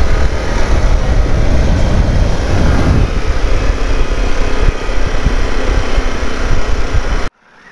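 Harley-Davidson Pan America 1250 motorcycle riding at road speed: a steady rush of wind over the microphone mixed with the Revolution Max V-twin engine running. The sound cuts off suddenly near the end.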